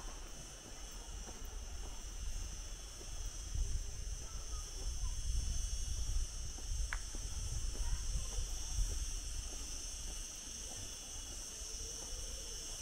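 Steady high-pitched insect drone, unbroken throughout, over a low outdoor rumble that swells in the middle.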